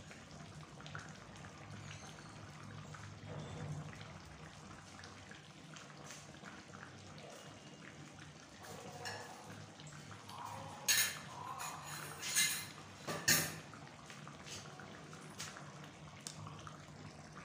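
Thick spinach saag simmering in a steel kadhai, bubbles popping in small scattered pops over a low steady hum. Three louder sharp pops or clatters come close together about two-thirds of the way through.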